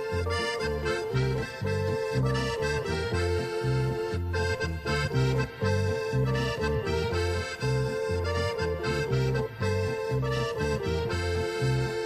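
Instrumental folk band music led by an accordion, with held chords over a steady, evenly pulsing bass and no singing.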